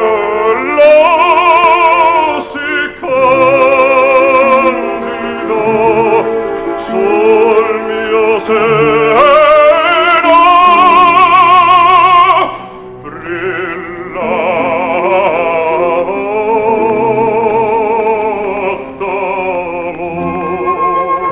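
Operatic baritone singing a slow aria with orchestra, with a wide vibrato. The loudest sustained notes come around the middle, and the singing is softer after a brief dip a little past halfway.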